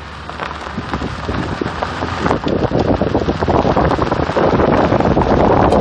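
Wind buffeting the phone's microphone: a rough, crackling rush of noise that grows louder over the first three seconds and then stays loud.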